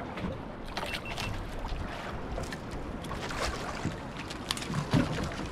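Steady wind and water noise around a fishing boat at sea, with frequent short sharp clicks and knocks.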